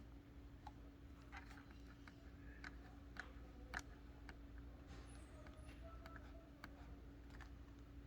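HP OfficeJet X476 printer making faint, irregular clicks over a steady low hum.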